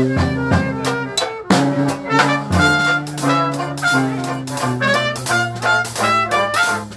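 Live Dixieland jazz band playing: a trumpet takes the lead over a tuba holding bass notes and a strummed banjo keeping the beat.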